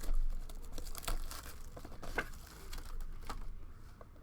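Trading card packaging being handled and opened: plastic and foil wrappers crinkling and tearing in a run of irregular crackles and clicks.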